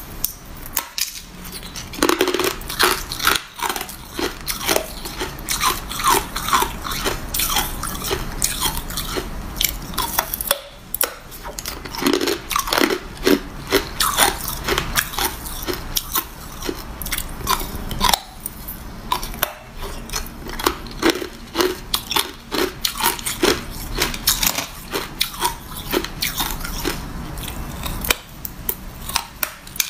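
Clear ice being bitten and chewed: a dense run of sharp cracks and crunches as the ice breaks between the teeth.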